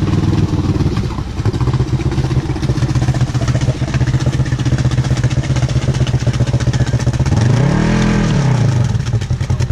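Side-by-side UTV engine running steadily at low revs, with one brief rev up and back down about eight seconds in, as the vehicle sits stuck in deep mud.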